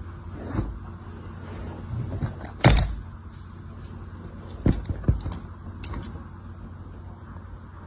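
Several knocks and thumps over a steady low hum; the loudest thump comes near three seconds in, and two more follow close together near five seconds.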